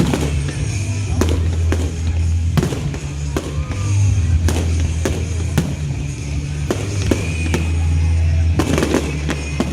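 Fireworks bursting with sharp bangs, a dozen or so at irregular intervals and a quick run of them near the end, over loud music with a heavy bass.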